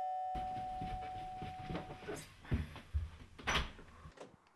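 A doorbell's chime rings out and fades over the first two seconds, while footsteps thud down carpeted stairs. Three heavier thuds come in the second half, then the sound drops away to quiet.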